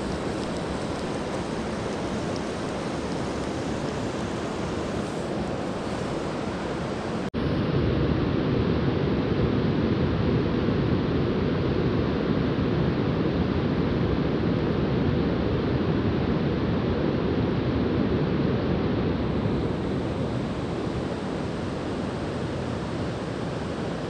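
Steady rushing of fast-flowing river water. After an edit about seven seconds in, it becomes louder and deeper.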